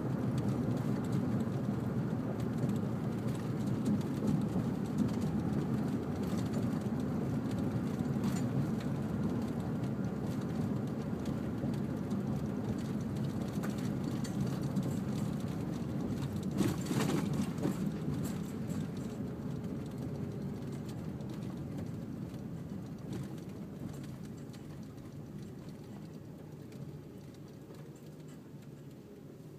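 Steady low engine rumble that fades away gradually over the last ten seconds, with a brief sharp rattle about two thirds of the way through.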